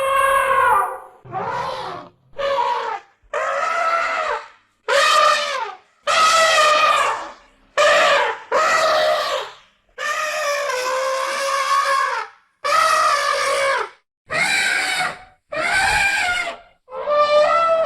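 Elephant trumpeting: a series of about thirteen calls, each half a second to two seconds long, holding a fairly steady pitch with short silences between them.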